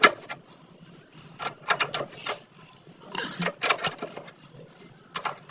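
Metal tools clicking and clinking against the parts of a motorcycle shock absorber under repair: a string of irregular sharp clicks.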